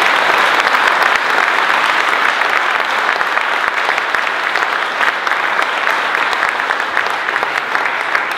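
Audience applauding: dense, steady clapping from many hands, easing slightly toward the end.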